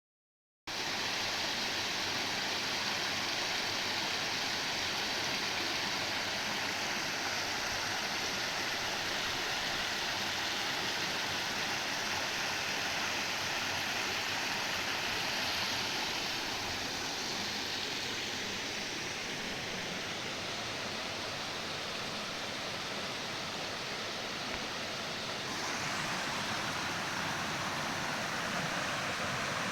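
Mountain stream rushing over rocks in a steady, even rush of water. It cuts in abruptly about half a second in, and its tone shifts slightly near the end.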